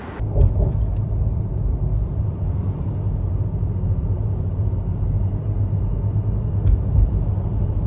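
Pickup truck on the move: a steady, low engine and road rumble. A few light clicks come about half a second in, and a single sharper click comes about two-thirds of the way through.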